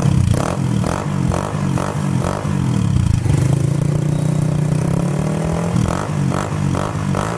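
Honda CG 150 Sport's single-cylinder four-stroke engine revved through a Roncar Coyote 2Way exhaust set to its open, sport setting: a run of quick throttle blips, a steady held rev in the middle, then a few more blips near the end.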